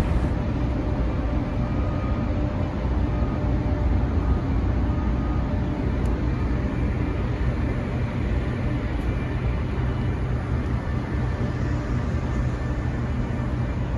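Steady low rumble of a dredger's engines and machinery, heard from its deck with a few faint steady tones above the rumble, as the ship is brought alongside a jetty.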